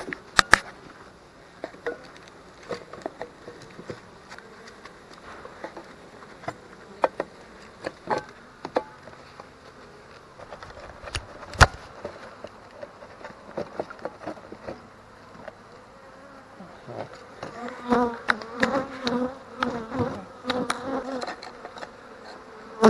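Honey bees buzzing around an opened bee package, with scattered clicks and knocks as the wooden package box and its metal feeder can are handled, one sharp knock just before halfway. The buzz grows louder and clearer near the end as bees fly close by.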